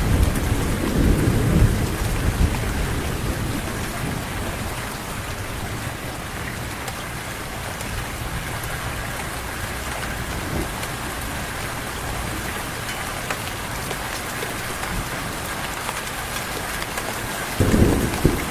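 Heavy rain falling steadily. A low thunder rumble fades over the first couple of seconds, and another rumble of thunder breaks in suddenly near the end.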